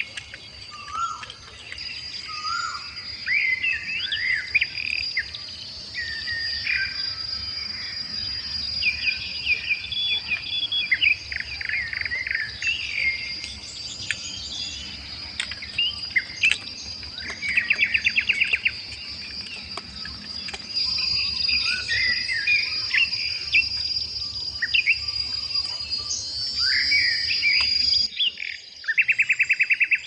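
Many forest birds calling at once: short chirps, whistles and fast trills, over a steady high insect drone. The drone and background hiss cut out about two seconds before the end, while the birds go on.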